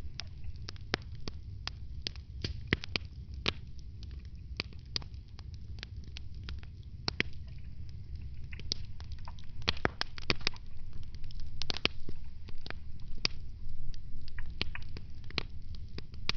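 Wood fire in a fireplace crackling: irregular sharp pops and snaps over a steady low rumble, coming thicker and louder in the second half.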